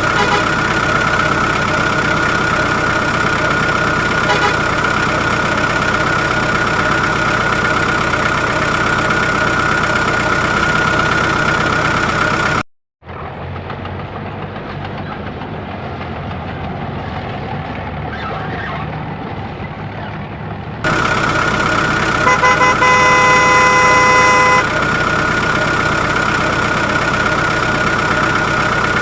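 A vehicle engine runs with a steady hum. About halfway through it cuts out abruptly, and a quieter, rougher engine sound runs for about eight seconds before the first hum returns. Soon after, a horn sounds for a couple of seconds.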